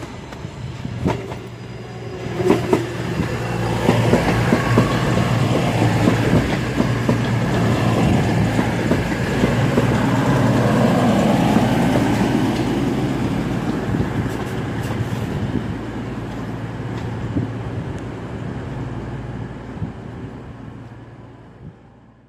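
CrossCountry Voyager diesel multiple unit approaching and running close by: a steady diesel engine hum under a wide rumble, with a few sharp wheel clicks over rail joints early on. It builds over the first few seconds, stays loud through the middle, then fades away.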